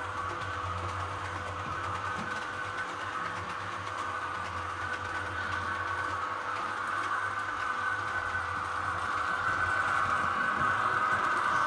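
Model train of an SBB Re 420 locomotive and freight wagons running on the layout's track: a steady motor whir and wheel rumble that grows louder toward the end as the train approaches.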